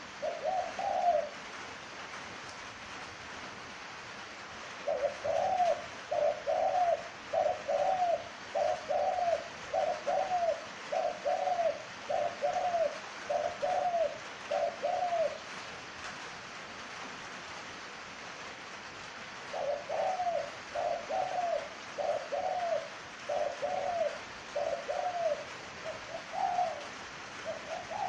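Caged spotted dove cooing in runs of short arched notes, a little under one a second: a brief pair near the start, a long run of about a dozen notes, a pause, then another run of about eight. The owner says the bird is moulting heavily and not cooing at full strength.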